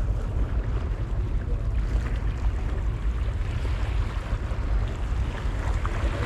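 Wind rumbling on the microphone over open sea, with the hiss of water: a steady low rumble and even noise, no distinct events.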